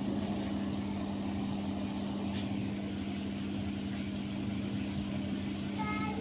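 A steady, unchanging low hum, like a small motor or fan running, with a faint click about two and a half seconds in.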